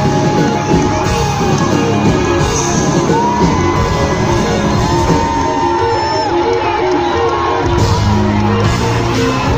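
Rock band playing live, taken from the sound-board mix: electric guitars, bass and drums, with a bending lead melody line over them.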